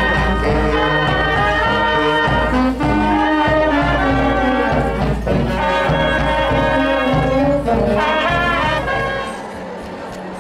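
Brass band playing a march: trumpets and trombones carrying the tune over a low bass. The music cuts off suddenly near the end.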